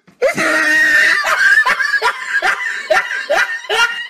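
Loud, shrill laughter: a high squealing laugh, then a run of short laughing bursts about three a second.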